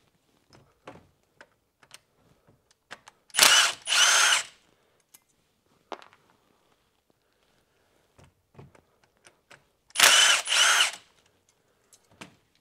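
Milwaukee M12 cordless 3/8-inch ratchet undoing a bolt on the seized A/C compressor's clutch. Its motor whines in two short runs, each a pair of quick pulses rising slightly in pitch, one about three and a half seconds in and one near ten seconds. Light clicks and knocks of the tool being handled come between the runs.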